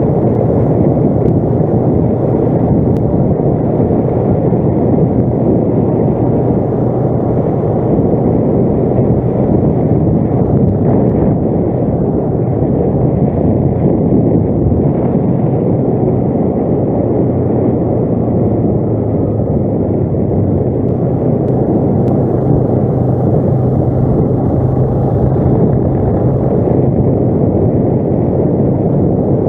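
ATV engine running steadily, a loud even drone with no clear revs or gear changes.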